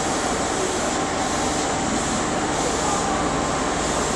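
Osaka Metro 70 series linear-motor subway train pulling into an underground station platform: a steady rumble and hiss of the train rolling in at low speed.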